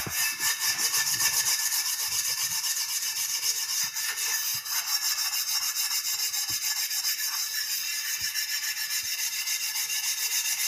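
Rapid, even back-and-forth scrubbing on the surface of a blackened dosa griddle, rubbing off burnt-on black residue with toothpaste.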